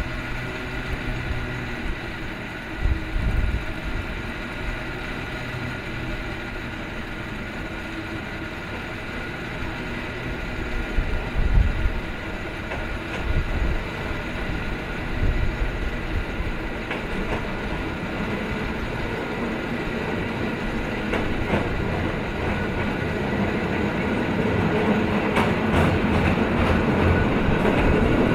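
San Francisco cable car coming up the hill on its tracks: a steady whine of the moving haul cable in the slot under the street, a few low thumps, and the car's wheels clattering on the rails, growing louder as it draws near and passes close near the end.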